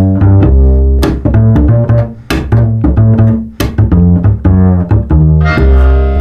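Funk music: a prominent plucked bass line with sharp percussive hits about every second and a quarter, and a brighter layer coming in near the end.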